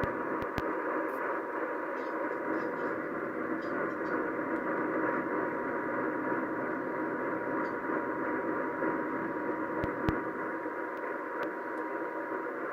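AM radio receiving a distant station weakly: a steady band of static hiss with a faint steady tone running through it, and a few sharp clicks about half a second and ten seconds in. These are signs of poor long-distance reception.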